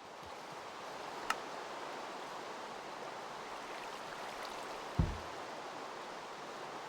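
Steady rushing of flowing floodwater, with a sharp click a little over a second in and a low thump about five seconds in.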